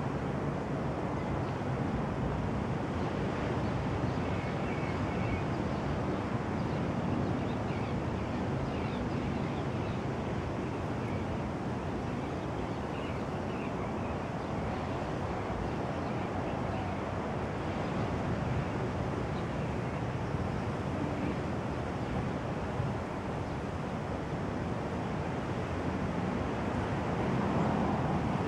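Steady rushing outdoor background noise, with a few faint, brief high chirps now and then.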